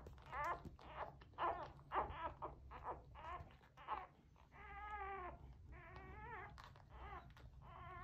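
Newborn English springer spaniel puppies squeaking and crying: a quick run of short, high, wavering squeals, then two longer cries about halfway through, and another near the end.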